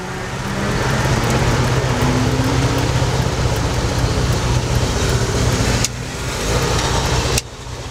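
Fiat 850's rear-mounted four-cylinder engine running steadily under way, heard from inside the cabin. The sound drops away briefly about six seconds in, then falls off sharply near the end.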